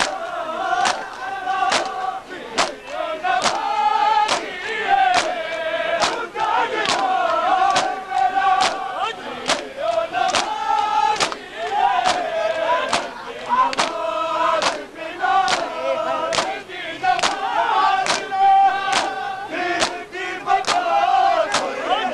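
A large crowd of men chanting in unison while striking their bare chests with their palms in matam. The slaps land together on the beat, about three every two seconds, under the rising and falling chant.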